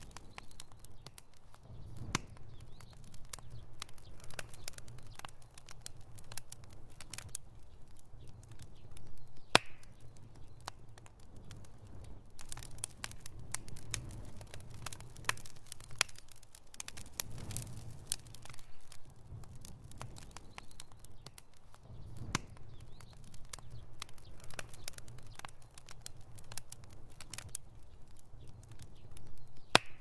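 Wood campfire of split logs burning, crackling with frequent irregular sharp pops over a low steady rumble, one pop louder than the rest about ten seconds in.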